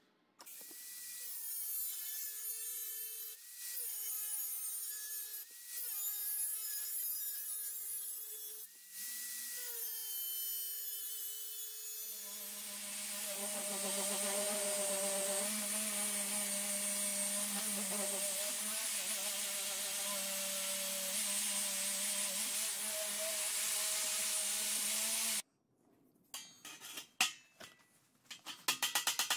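Angle grinder with a cutting disc slicing a slot into a steel plate. Its motor whine shifts in pitch under load through several short stretches, then runs as one long steady cut with a strong hiss that stops suddenly. A few sharp knocks follow near the end.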